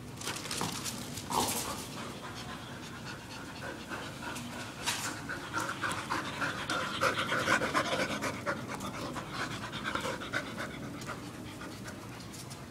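Labrador retrievers panting fast and hard close up, winded from rough play, the panting heaviest in the middle of the stretch.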